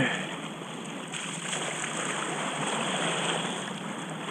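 Water washing and splashing around a kayak as it is paddled: a steady wash that swells a little in the middle.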